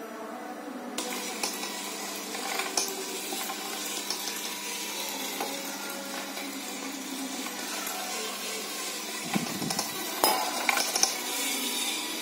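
Drive motors of a small line-following robot whirring steadily with a faint hum as it runs over tile, with a few clicks and knocks about ten seconds in.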